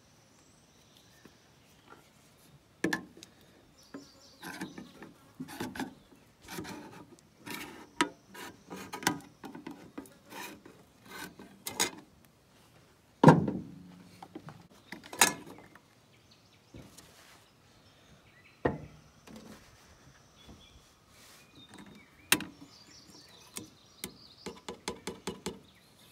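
Handling of tools and a metal gallon paint can: irregular clicks, knocks and scrapes, with one sharp knock about halfway through. Near the end comes a quick run of about seven taps as the lid is pried loose.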